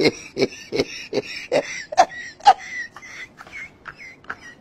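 A man laughing hard in short breathy bursts, about two or three a second, the bursts growing weaker after about three seconds.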